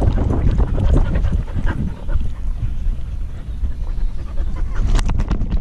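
Siberian husky panting, heard through a camera strapped to its back, with a heavy low rumble of the mount rubbing on the microphone. A few sharp clicks come about five seconds in.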